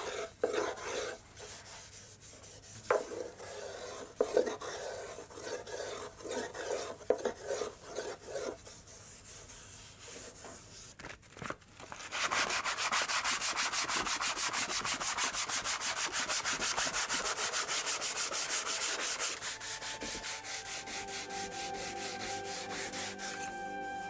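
Hand-sanding the curved wooden roof of a mikoshi with a sanding pad. Slow, uneven rubbing strokes give way about halfway through to rapid, steady back-and-forth scrubbing. Soft music comes in near the end.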